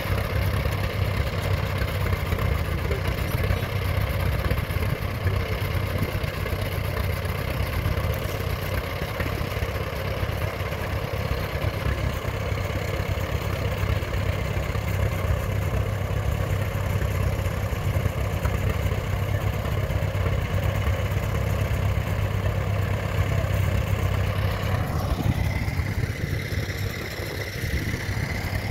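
A tractor engine running steadily at a constant speed. A few seconds before the end its note changes and a steady higher tone comes in.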